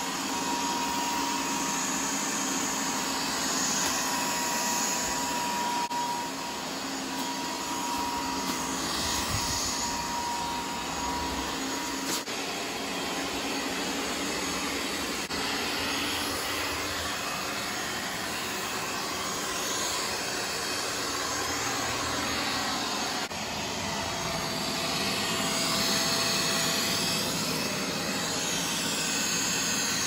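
A realme TechLife robot vacuum running, its suction fan making a steady whooshing noise with a faint whine, and a few small clicks as it works across the floor.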